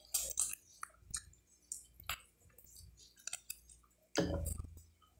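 Close-up chewing of pork rib meat eaten by hand, with many short, wet mouth clicks and smacks. A louder, lower sound comes about four seconds in.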